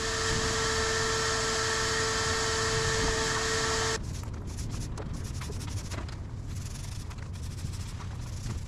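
A steady machine hum with a high whine runs for about four seconds and cuts off suddenly. After it comes a quieter stretch of soft rubbing with a few faint clicks, as a small roller spreads resin over a foam core panel.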